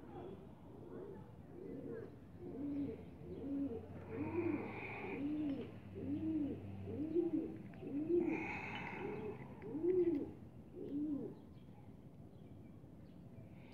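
A dove cooing in a long run of low, arched coos, about one and a half a second, that stops near the end.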